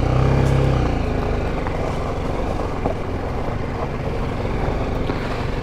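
BMW G310GS single-cylinder motorcycle engine pulling away at low speed. The engine note is strongest for about the first second, then eases to a steady, lower running note.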